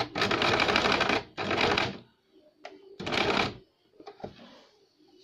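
Compact electric sewing machine stitching lace trim onto fabric in short runs. A run of about a second at the start, a brief second run, and a short burst about three seconds in, followed by a couple of light clicks.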